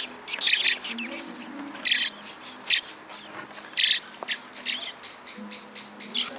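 Songbirds chirping: a rapid run of short, high chirps, several a second, with a few louder ones standing out.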